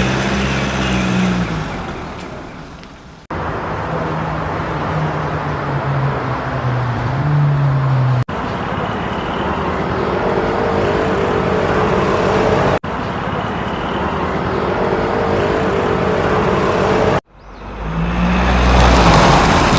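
Motor vehicle engine sounds in several short segments joined by abrupt cuts: the first fades away, the middle ones run steadily, and a brief louder run near the end swells and cuts off.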